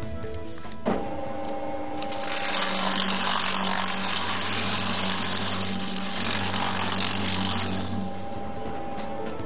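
IDEAL 4605 cross-cut paper shredder switching itself on by photo cell as paper is fed in: a click about a second in, then about two seconds in the motor starts and the cutters shred the stack for about six seconds with a steady hum and dense rustling, stopping near the end.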